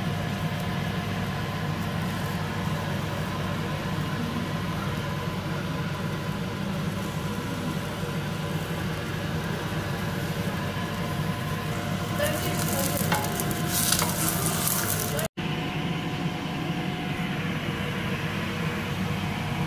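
Sliced onions sizzling as they fry in oil in a steel pot. The sizzle turns louder and hissier for about two seconds past the middle, and a steady low hum runs underneath. The sound cuts out for an instant near the three-quarter mark.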